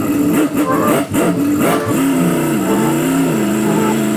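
Chevrolet C10 pickup's engine running and being revved as the truck moves under its own power, its pitch rising and falling. Several sharp cracks come in the first two seconds.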